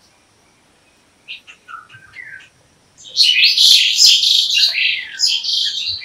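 Stork-billed kingfisher calling: a few short calls, then from about three seconds in a loud, harsh, rasping call that keeps going.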